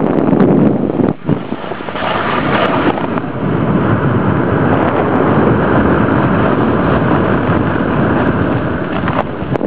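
Loud, steady rushing of wind buffeting the microphone of a camera carried down a snow slope at speed, mixed with the hiss of snow under the rider, with a brief dip about a second in.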